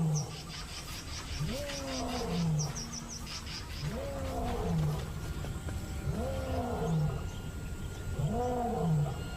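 A male African lion roaring: four long, deep calls about two seconds apart, each rising and then falling in pitch. It is a pride male's territorial roar, declaring ownership.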